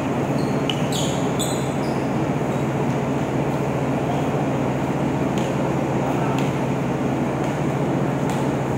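Steady, loud mechanical drone of a ship's machinery and ventilation in an enclosed vehicle deck. Over it, a basketball knocks sharply on the steel deck now and then, and sneakers squeak a few times about a second in.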